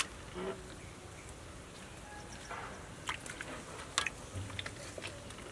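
Soft wet squelches and a few light clicks as large whole squids are pressed down into a wok of dark sauce with a metal spatula. The sharpest click, about four seconds in, is the spatula touching the steel wok.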